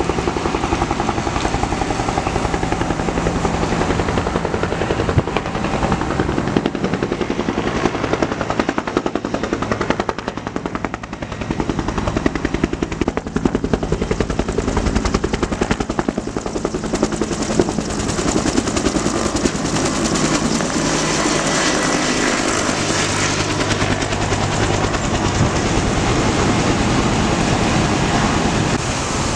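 Firefighting helicopter's rotor blades beating in a fast, steady chop, mixed with the steady running of a fire engine's pump engine.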